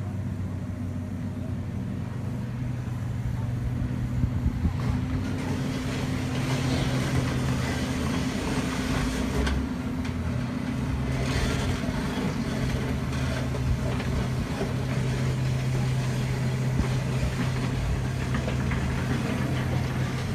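Hitachi ZX470LCH-5 50-ton excavator's diesel engine running steadily under load as it knocks down the hillside. A few sharp knocks come about four to five seconds in, and a rush of clattering noise follows from about six to twelve seconds in as earth and rock come down.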